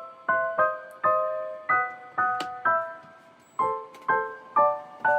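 Background piano music: a light melody of notes and chords struck about twice a second, each ringing and fading.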